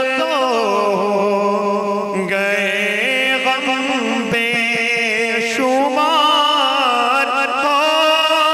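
A man singing an Urdu naat solo, drawing out long, wavering notes that glide down in pitch over the first two seconds and rise again about six seconds in.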